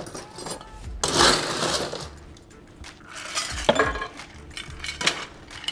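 Ice cubes rattling into a metal stirring tin about a second in, followed by scattered clinks of ice and bar spoon against the tin as the drink is stirred.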